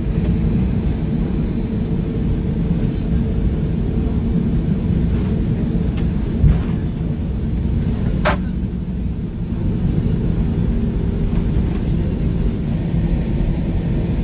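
Airbus A320 cabin noise while taxiing: a steady low rumble of the engines and the airframe rolling. There is a single low thump about six and a half seconds in and a sharp click a couple of seconds later.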